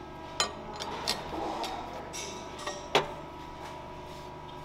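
Welding positioner turning a steel roll-cage tube in its chuck: a steady low machine hum with faint steady tones, broken by a few sharp metallic clicks, the loudest about three seconds in.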